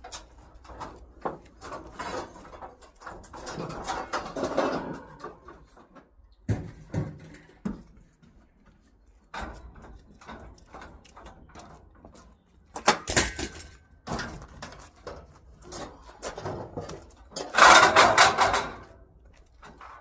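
Knocks, clicks and rattles of scrap objects being handled, with a short loud clatter about two-thirds of the way in and a longer, louder scraping clatter near the end.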